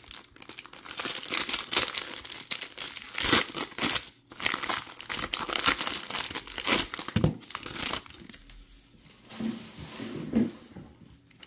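Foil wrapper of a baseball card pack crinkling and tearing as it is opened by hand. The crackling is dense for about eight seconds, then dies down to sparse rustles.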